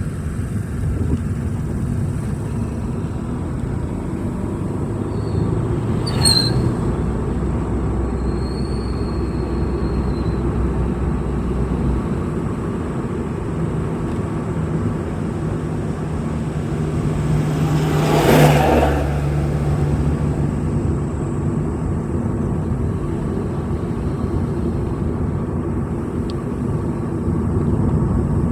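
A vehicle driving along a road: a steady low engine and road rumble whose engine note shifts in pitch every few seconds. A brief whoosh comes about two-thirds of the way through.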